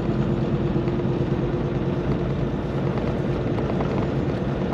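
Semi-truck's diesel engine and road noise heard from inside the cab while driving: a steady, even low drone.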